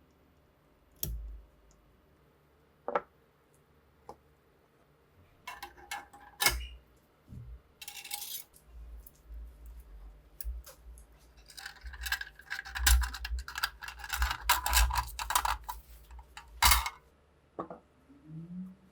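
Metal rifle parts being handled: scattered single clicks and clinks, then a busier stretch of clinking and rubbing in the second half, ending with a sharp knock.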